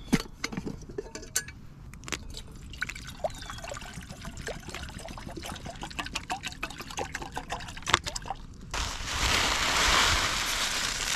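Wood fire crackling with scattered sharp pops. About nine seconds in, a loud steady hiss starts suddenly and keeps going.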